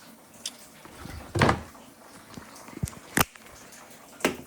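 A series of knocks and clunks: five separate hits, the loudest and longest about a second and a half in.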